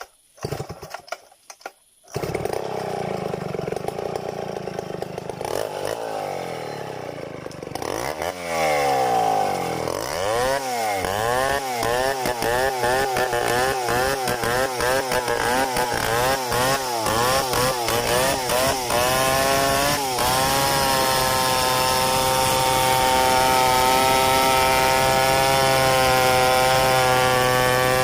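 Stihl 070 two-stroke chainsaw coming in about two seconds in. From about ten seconds it is revved up and down in quick repeated blips, and from about twenty seconds on it is held at a steady high speed.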